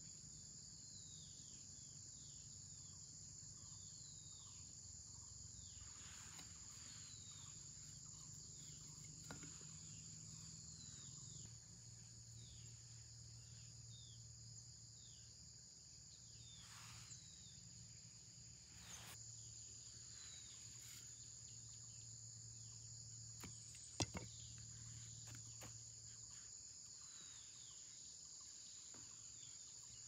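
Faint, steady drone of insects, with many short downward-sliding bird calls scattered through it. A single sharp click about two-thirds of the way in.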